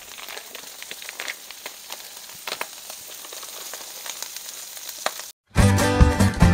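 Andouille sausage, shrimp, peppers and rice sizzling on a Blackstone flat-top griddle, a steady frying hiss with a few sharp clicks. About five seconds in it cuts off and acoustic-guitar country music starts.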